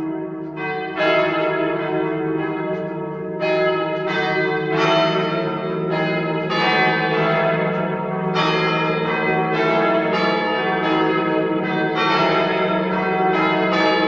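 Several church bells ringing in a peal, struck in irregular turn every half second to a second and a half, each stroke ringing on into the next over a steady low hum.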